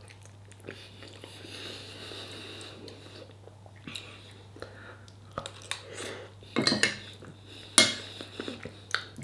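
Metal fork clinking and scraping against a ceramic bowl, with quiet chewing in between. The clinks come irregularly from a few seconds in; the loudest are about two-thirds of the way through.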